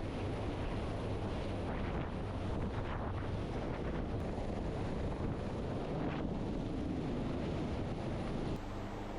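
Steady rumble of a rescue helicopter's rotors and engine, with wind buffeting the microphone. Near the end it cuts suddenly to a quieter, steady hum.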